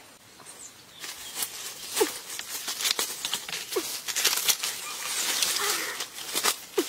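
Mango tree leaves rustling and twigs cracking as branches are grabbed and pulled, starting about a second in, with a few short creaks.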